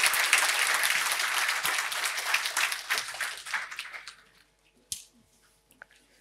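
Audience applauding, dying away about four seconds in. A single light knock follows about a second later.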